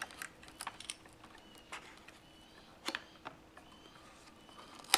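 Laptop keyboard ribbon cable being pulled free of the adhesive that holds it down: scattered faint clicks and crackles, with a sharper click near the end.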